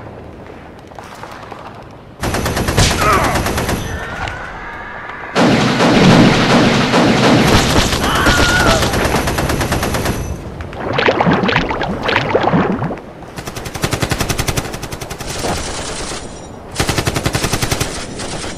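Rapid machine-gun fire, a sound effect, breaking in suddenly about two seconds in and going on in several loud bursts, with men's voices crying out among the shots.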